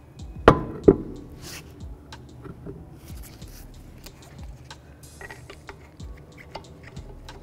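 Wheel and tyre knocking twice onto the hub as it is hung in place, then small metallic clicks and scrapes as the lug bolts are threaded in by hand.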